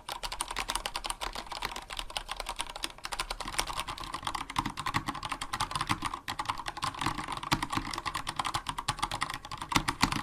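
Continuous fast typing on a Vortex Race 3 mechanical keyboard with stock unlubed Cherry MX Speed Silver linear switches and DSA-profile PBT keycaps: a dense run of key clacks. The sound gets fuller and deeper about a third of the way in.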